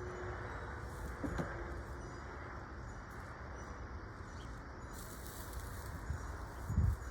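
Steady low outdoor background rumble with faint bird calls, and a couple of dull thumps near the end.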